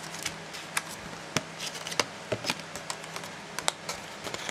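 Clear plastic blister packaging being handled: scattered light clicks and crackles, a few a second, over a faint steady low hum.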